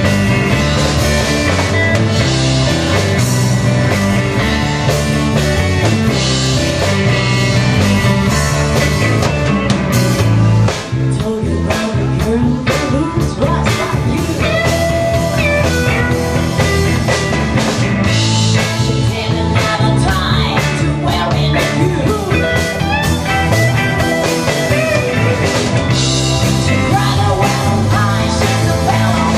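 Rock band playing live: electric guitars, bass, keyboards and a drum kit, with a woman singing into the microphone.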